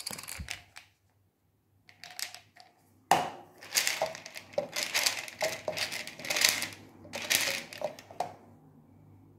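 Plastic supplement bottle being opened by hand: crinkling and scraping at its mouth, as the seal or packing is worked free. It comes in a few short bursts at first, then a dense run of crinkling over several seconds that stops about a second before the end.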